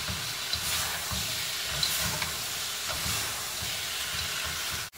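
Vegetables sizzling in an oiled wok while being stirred and tossed, the spatula and spoon scraping and knocking against the pan in repeated strokes. The sound drops out for an instant just before the end.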